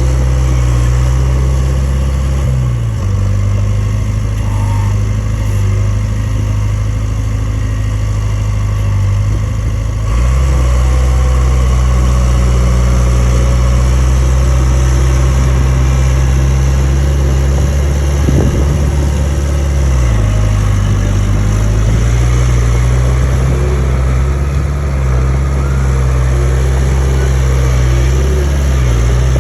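Komatsu D31A bulldozer's diesel engine running steadily and loud. Its pitch shifts a few times: near the start, about a third of the way in, and again about two-thirds through, where it dips and comes back up.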